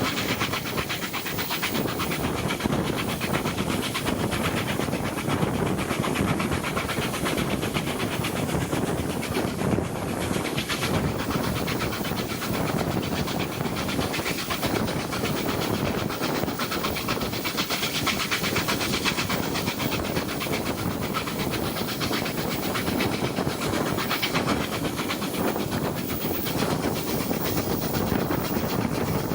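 Steam-hauled train running steadily along the line: continuous rumble and rail noise with hiss, holding an even level throughout.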